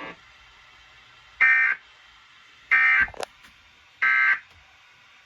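Emergency Alert System end-of-message tones: three short, identical bursts of warbling digital data, about a second and a quarter apart. They signal that the alert message is over. A sharp click follows the second burst.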